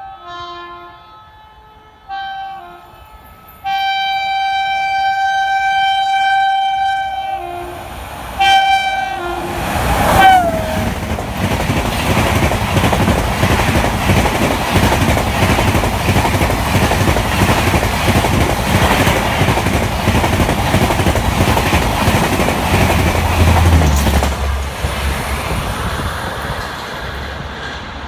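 A WAP7 electric locomotive sounds its horn in a string of blasts, the longest about four seconds, the last one dropping in pitch as it passes about ten seconds in. Then the Rajdhani Express coaches rush by at speed with a steady rumble and wheel clatter, which eases off in the last few seconds.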